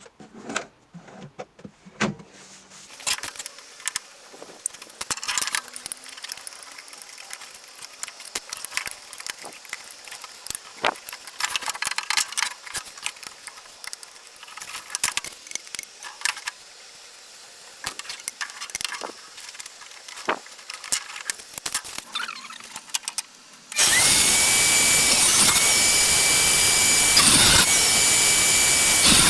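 Clicks and knocks of wood and hardware being handled. About 24 seconds in, a handheld power tool's motor starts and runs loud with a steady whine, easing off briefly a few times.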